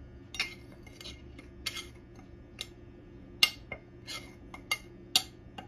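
Metal spoon clinking and tapping against a container while curry powder is scooped out and measured: about a dozen light, irregular clinks.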